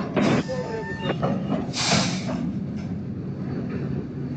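Rail grinder train running steadily with a low rumble. A short burst of noise comes about two seconds in.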